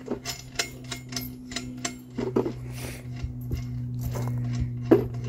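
Small steel washers and lug nuts clinking and clicking together in irregular bursts as they are sorted by hand and fitted onto a tractor wheel's lug bolts, over a steady low hum.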